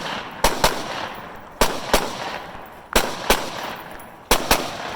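Rifle shots on a firing line: eight sharp cracks in four close pairs, the pairs coming about every second and a third, each crack ringing out briefly.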